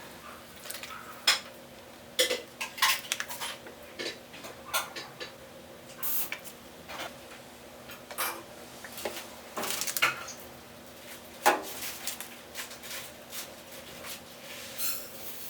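Dishes and cutlery clinking and knocking as they are handled, in irregular clinks, some ringing briefly.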